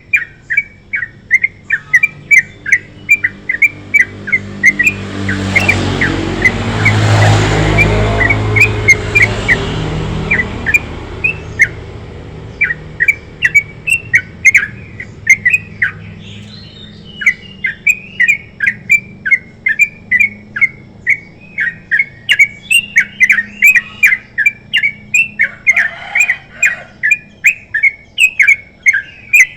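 Yellow-vented bulbul (trucukan) singing a long run of rapid chattering notes, several a second, with a short pause about halfway. Early on, a low rumbling noise swells up and fades away beneath the song.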